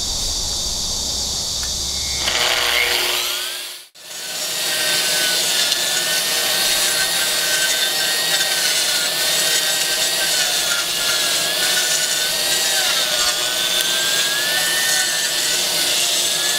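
AGP SM7 180 mm concrete grinder's 2,200 W motor winding up after switch-on. After a brief break about four seconds in, it runs steadily grinding concrete: a loud high whine that wavers slightly in pitch under load, over a gritty hiss of abrasion.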